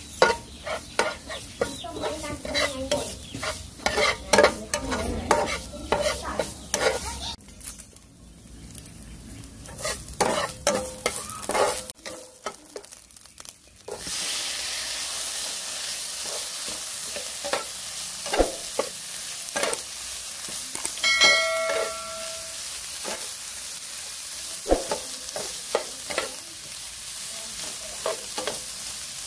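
Spatula scraping and tapping in a nonstick wok as a spice paste with chilli is stir-fried; about fourteen seconds in, eel pieces go into the hot pan and a steady sizzle sets in under the stirring. A rooster crows once in the background a little past twenty seconds in.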